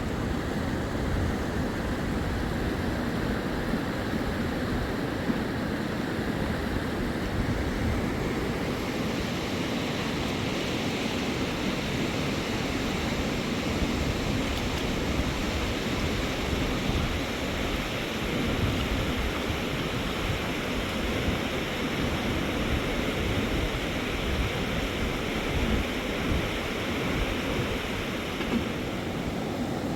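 Steady rushing of flowing river water, with wind buffeting the microphone. A brighter hiss joins about nine seconds in and drops away near the end.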